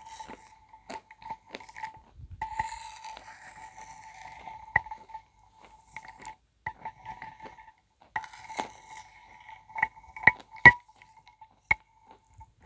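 Soup slurped off a metal spoon in long drawn sips, with sharp clinks of the spoon against a ceramic bowl. The loudest clinks come close together near the end.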